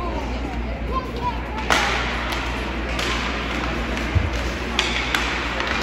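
Ice hockey play: sharp cracks of stick on puck or puck against the boards, one about two seconds in and two more close together near the end, with a dull thump between them, over steady rink noise.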